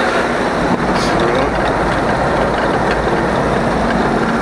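Vehicle engine running and road rumble, heard from inside the cab while driving along a country road.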